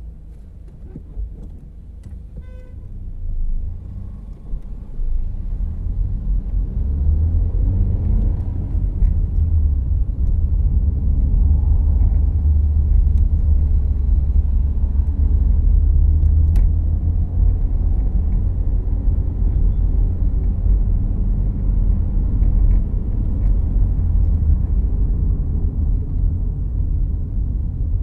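Inside the cabin of a 2014 Volkswagen Jetta Clásico on the move: a low engine and road rumble that grows louder over the first several seconds, then runs steadily. A short high tone sounds about two seconds in.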